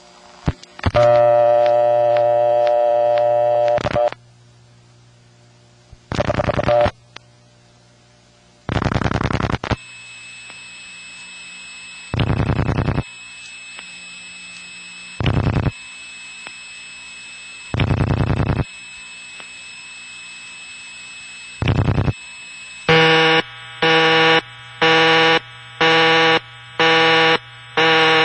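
A telephone call through a Bell System step-by-step office: dial tone, then the clicking pulses of each dialled digit. After the third digit the hiss and steady tone of the N3 carrier line come on. The call ends in the rural community dial office's busy signal, beeping on and off about once a second.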